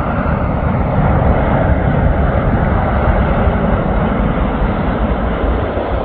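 Jet airliner landing close by: loud, steady engine noise with a deep rumble.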